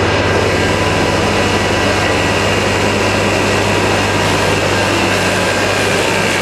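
Tesla bladeless disc turbine running during warm-up: a steady loud rush with a low hum and several thin whining tones that sink slightly in pitch in the second half.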